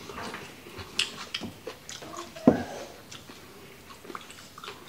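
Eating noises: lip smacks and clicks of chewing, with one short, loud voiced sound that drops in pitch about halfway through. Near the end, a sip from a drink can.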